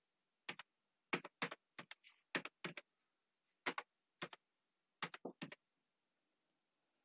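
Computer keyboard keys tapped one at a time at an uneven, unhurried pace while digits are typed; many keystrokes come as close double clicks.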